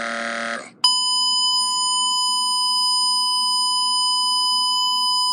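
A held, steady vocal-like note cuts off under a second in. Then a continuous high-pitched electronic tone starts and holds unchanged: the long test-tone beep of an emergency alert broadcast going off the air.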